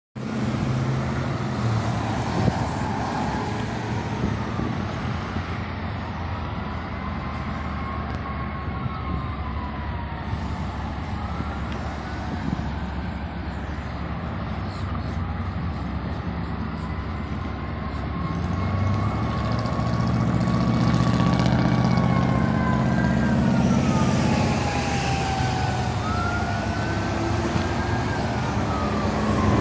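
Sirens of an approaching fire engine, including a mechanical Q siren, wailing slowly up and down in pitch over the running engines of traffic at an intersection. The traffic rumble grows louder about two-thirds of the way through.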